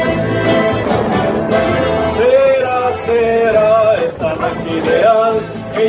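Rondalla string ensemble playing: guitars and small mandolin-type instruments strummed and plucked together. A wavering melody line rises above the strings from about two seconds in, between the sung verses.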